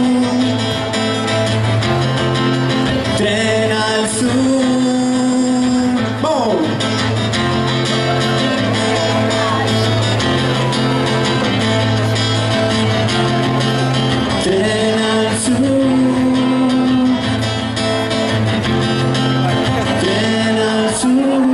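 Live rock band playing an instrumental passage with electric guitar over a steady bass line, with a few sliding guitar notes about six seconds in.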